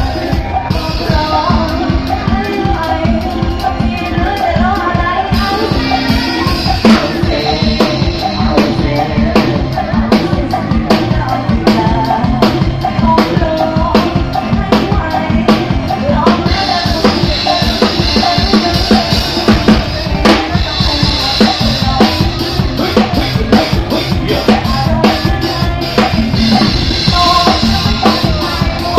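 Loud live band music played over a stage sound system, with a drum kit keeping a steady, fast beat under a melody.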